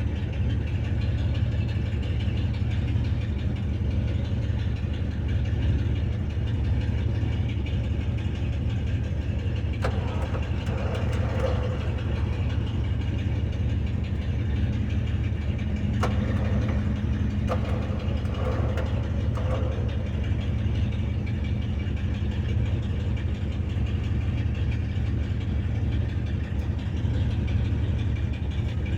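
A vehicle engine idling steadily, with a few short clanks and knocks of work on the truck about ten seconds in and again around sixteen to eighteen seconds in.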